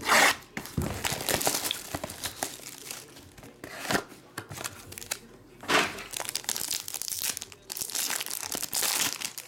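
Plastic wrapping on a trading card box and the foil pack inside crinkling and tearing as they are pulled open by hand, with sharp tearing at the start and again a little past halfway.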